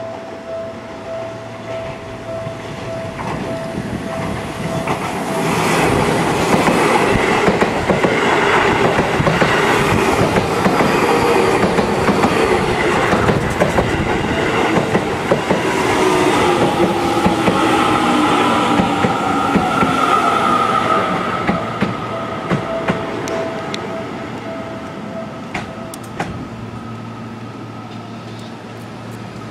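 Seibu 30000-series electric train running past close by and slowing into the station, wheels clattering over the rails. Its motor whine falls in pitch as it brakes, and the noise eases off toward the end as the train stops. A steady pulsing tone sounds at the start and again in the later part.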